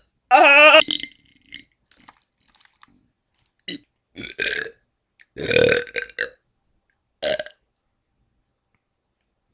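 A person burping on purpose: one long, loud burp with a wavering pitch about half a second in, then several shorter burps spaced a second or so apart.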